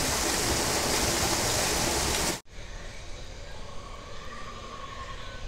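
Water of a small waterfall pouring down a rock face close by, a steady rush that cuts off suddenly about two and a half seconds in, leaving a much quieter outdoor background.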